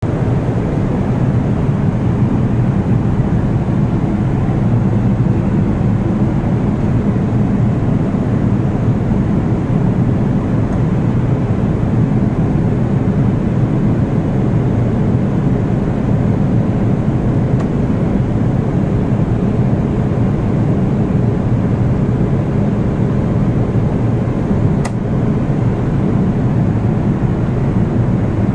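Steady cabin roar of an airliner in flight: engine and airflow noise heavy in the low range, unchanging throughout, with one faint click near the end.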